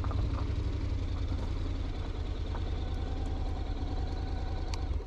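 Honda X-ADV's 745 cc parallel-twin engine running steadily at a low idle, with a strong low hum, as the bike rolls slowly to a stop.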